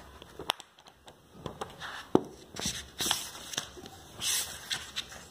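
Pages of a thick paperback book being turned and handled by hand: papery rustles and swishes, with a few sharp taps, the loudest about two seconds in.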